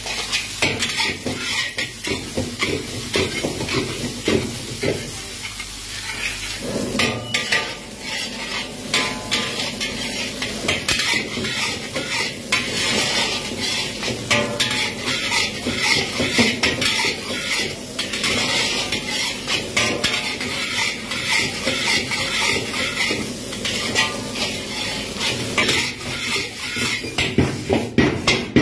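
Fried rice sizzling in a hot wok, stir-fried with a steel ladle that scrapes and clinks against the metal again and again, and tossed near the end.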